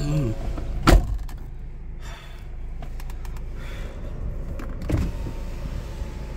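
Car door opened from inside: a sharp latch click about a second in, a few lighter clicks after it, and a knock near five seconds. A steady low hum of the idling car runs underneath.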